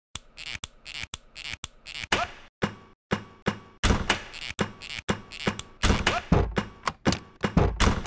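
Percussive beat built from recorded everyday sounds: sharp clicks, snaps and knocks in a steady rhythm, with a deeper thump joining from about four seconds in.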